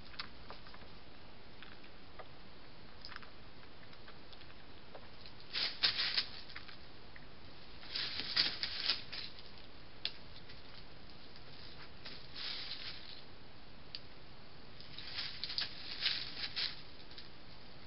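Chamois moving over dry leaf litter: short clusters of rustling crackles from hooves and muzzles shuffling in the dead leaves, five bursts or so, over a steady hiss.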